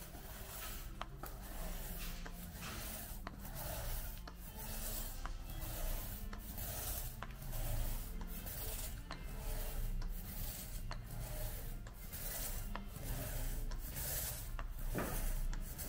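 Long-handled laminating roller rolled back and forth over resin-wetted glass-fibre mat, a rhythmic rolling scrape with a stroke about once a second as the resin is worked into the fibreglass.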